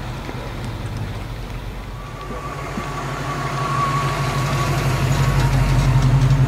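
An older car's engine pulling away, then a late-1960s Ford Mustang fastback driving up and past at an even speed, its exhaust note steady in pitch and growing louder as it nears.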